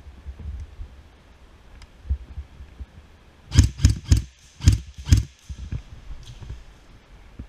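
Five sharp knocks or cracks in quick succession about halfway through, spread over a second and a half, over a low, rough rumble.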